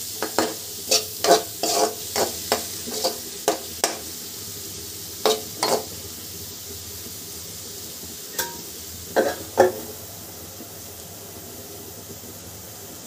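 A metal spatula scrapes and knocks against an aluminium kadai, stirring a tomato, onion and spice masala that sizzles steadily as it fries. The strokes come quickly, two or three a second, for the first four seconds, then thin to a few scattered knocks with the sizzle going on alone.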